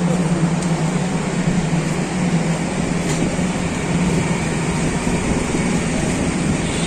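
A steady low mechanical hum under an even wash of noise.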